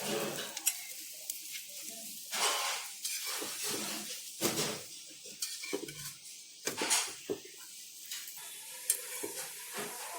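Batter frying in oil on an iron tava, sizzling steadily, with irregular scraping strokes of a utensil across the griddle and a few sharp clicks.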